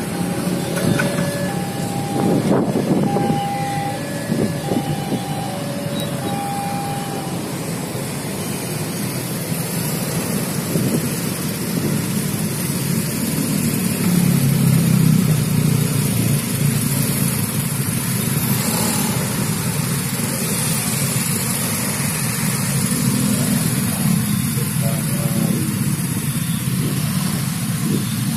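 Busy road traffic at a railway level crossing: motorcycles and cars running and pulling away, with one vehicle passing close about halfway. For the first few seconds the crossing's warning alarm is still sounding, a two-tone beep alternating about once a second, and then it stops.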